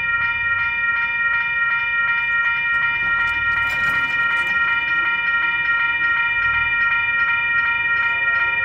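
Railroad crossing bell ringing in a fast, even stream of strikes as the crossing signals flash and the gate arm lowers. A lower tone joins the ringing near the end.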